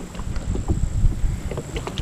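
A kayak running a fast, rough stretch of river: water rushing against the hull, with irregular low knocks and bumps.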